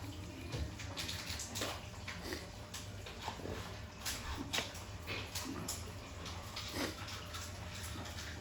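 Wet eating sounds: irregular smacking, chewing and slurping as goat soup and fufu are eaten by hand, over a steady low hum.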